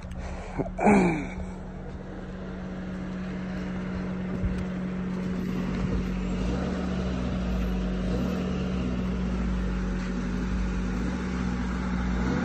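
Idling Honda sedan running with a steady hum, growing somewhat louder over the first several seconds. A short falling tone sounds about a second in, and a door-handle click comes around six seconds in as the rear door is opened.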